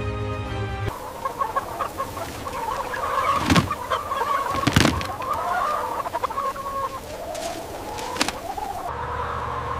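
A flock of broiler chickens clucking and chattering, with two sharp knocks a little over a second apart near the middle. Background music plays for about the first second and again near the end.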